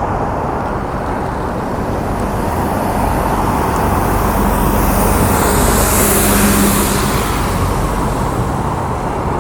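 Street sweeper truck passing close by: a steady engine hum with a high hiss that grows to its loudest about six seconds in, then eases off a little.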